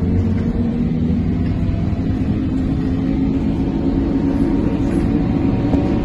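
Cabin noise of a Trolza-5275.06 Optima trolleybus under way: a steady rumble of the ride with a few faint held tones.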